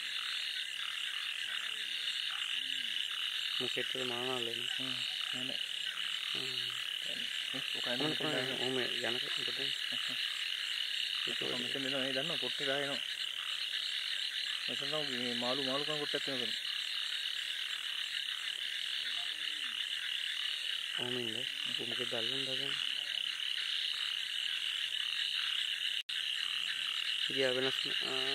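Frogs calling: a steady high-pitched chorus throughout, with louder, deeper warbling croaks every few seconds, each lasting about a second or two.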